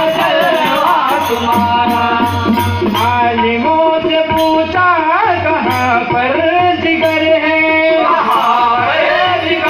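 Live devotional bhajan: a harmonium holds long sustained notes over a hand drum beat and jingling hand percussion. A male voice sings near the start and again near the end.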